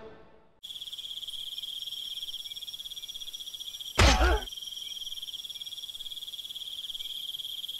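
Crickets chirping steadily at night, with a single gunshot about four seconds in.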